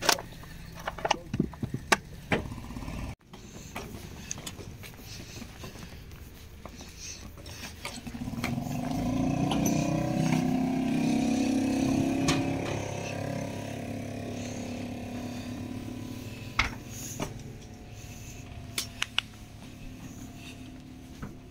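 Scattered knocks and footfalls on wooden steps and a gangway as bags are carried aboard a houseboat. A motor engine swells up in the middle and slowly fades away.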